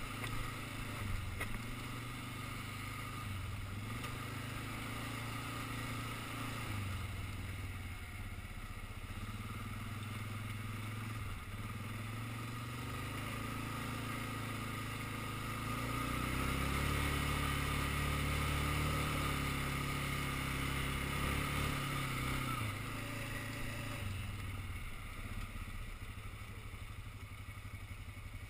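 Quad (ATV) engine running on a gravel track. It gets louder and higher in pitch for several seconds past the middle, then settles back to a steadier, quieter run near the end.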